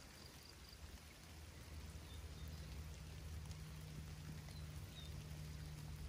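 Rain falling steadily, with wind rumbling on the microphone. A few faint high chirps come through, and a low steady hum joins about two seconds in.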